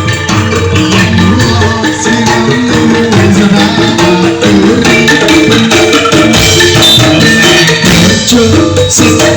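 Instrumental passage of live campursari music with angklung: a busy run of short melodic notes over percussion, played loud through a PA sound system.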